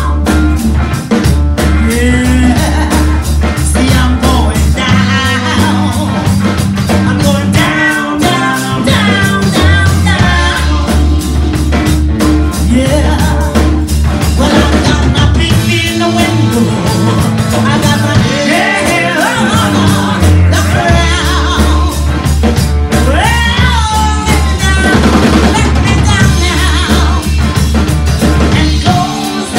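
Live rock band playing: a woman singing over electric guitar, bass guitar and drum kit, with the bass pulsing in a steady, even rhythm.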